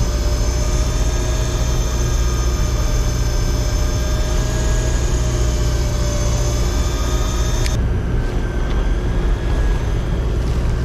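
Steady low drone of the charter boat's engines, with a layered high whine over it that cuts off suddenly about eight seconds in.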